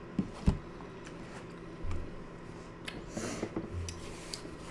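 A spoon knocks twice against a bowl, then a paper towel rustles and crinkles in the hands.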